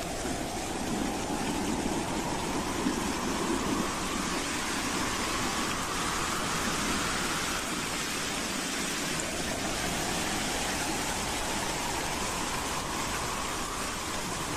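Wind howling: a steady rushing hiss with a whistling tone that slowly rises in pitch, twice.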